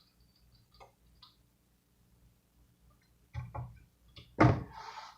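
A few faint clicks, then two short knocks about three and a half seconds in and a louder thump near the end: small utensils and containers being handled while cooking.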